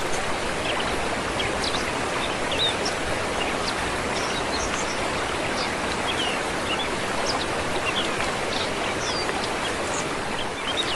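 Waterfall stream rushing steadily, with short bird chirps scattered through it.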